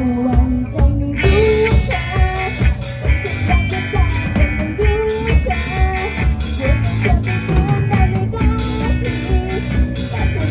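A live rock band playing: a female lead singer over electric guitars, keyboard and a drum kit. The drums and cymbals come in fully about a second in.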